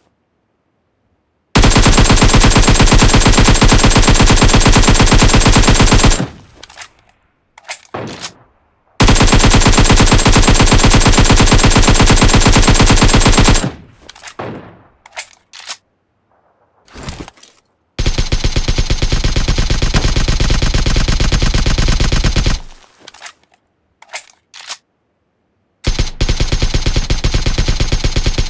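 Fully automatic AK-47 rifle fire in long sustained bursts of rapid shots, each about four to five seconds long. Three bursts are separated by gaps holding echoing tails and a few scattered single shots, and a fourth burst starts near the end.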